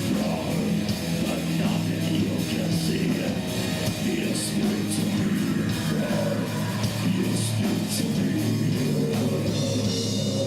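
Heavy rock music: distorted guitars and a drum kit with cymbal crashes, playing steadily.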